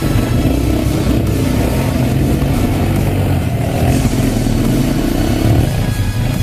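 Quad bike (ATV) engine running hard offroad, its pitch rising and falling with the throttle.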